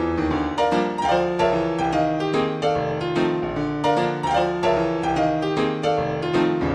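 Piano accompaniment to a silent film, a brisk run of many quick struck notes over a bass line.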